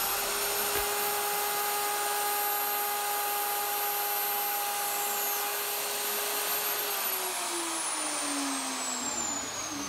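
Electric router on a flattening sled running at speed, its bit cutting across the face of a wooden slab to flatten it. It gives a steady high whine over a dense, even noise, and over the last few seconds its pitch falls.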